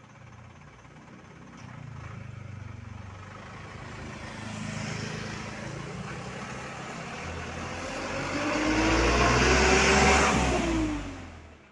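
Road traffic passing close by: a motorcycle goes past, then a dump truck drives by, its engine and tyres growing loud to a peak about ten seconds in, the engine pitch rising and then falling as it passes. The sound fades quickly near the end.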